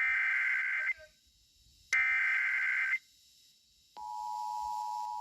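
Emergency Alert System SAME header data: two buzzy one-second bursts of digital warble a second apart. About four seconds in, the steady two-tone EAS attention signal starts, announcing an emergency alert.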